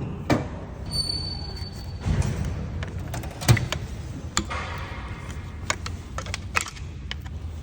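Screwdriver and metal engine parts clinking and knocking as a stuck part in a Honda D16Y8 engine's bottom end is pried at: scattered sharp clicks, with one louder knock about three and a half seconds in.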